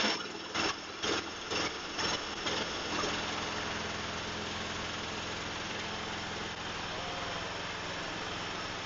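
Cub Cadet LT1045 lawn tractor engine just started, running with a few uneven surges about twice a second over the first three seconds, then settling into steady running.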